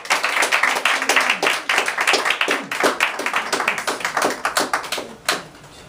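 People clapping their hands, a quick uneven patter of many claps that thins out near the end, with one last clap a little after five seconds in.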